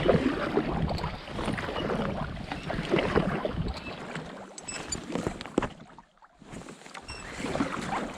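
Paddle strokes splashing and dripping in the water beside a packraft, swelling with each stroke about every two seconds and easing off near the end.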